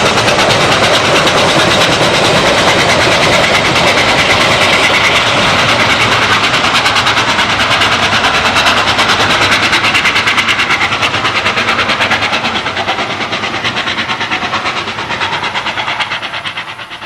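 Steam-hauled excursion train passing at speed, a loud rapid rhythmic clatter that fades away over the last few seconds.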